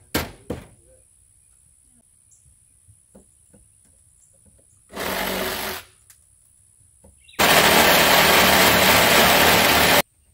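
Handheld power driver running in two bursts, a short one about five seconds in and a longer, louder one of nearly three seconds that cuts off sharply, driving screws into the top of a door frame. A few light knocks near the start.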